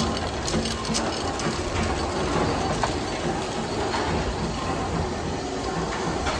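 Steam engines running in a pumping-station engine house: a steady mechanical clatter of moving rods and valve gear, with a few faint clicks.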